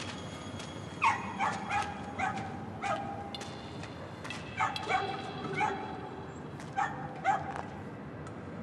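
A dog yapping: about ten short, high barks, each dropping in pitch, in three bouts.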